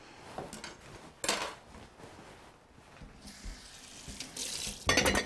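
Kitchen tap running into a sink, with a brief loud burst of noise near the end.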